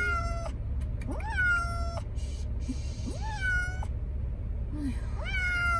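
Domestic cat meowing over and over in distress, four long meows that each rise sharply and then hold, about every one and a half to two seconds, over a steady low rumble. The cat is frightened at being taken to the vet.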